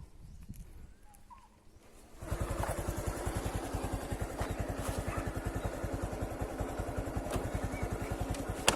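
A small engine comes in suddenly about two seconds in and runs steadily with a rapid, even putter. Before it, a few faint bird chirps; a single sharp click comes near the end.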